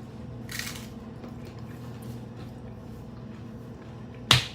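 Mouth-close eating sounds of crunchy tacos: soft chewing and a short wet smack about half a second in, then a sharp loud crunch near the end, over a steady low electrical hum.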